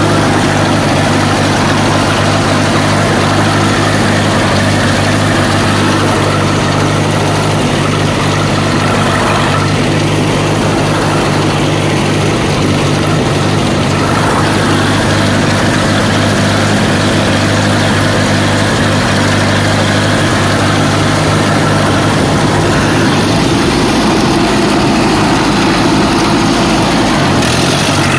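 Allis-Chalmers farm tractor engine running steadily while towing a log across a field; its note changes about 23 seconds in.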